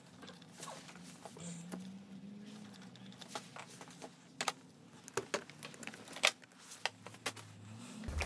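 Small clicks and rattles of a heated-grip wiring harness's plastic connectors and wires being handled at a scooter's handlebar. Several sharp clicks come in the second half, the loudest about six seconds in.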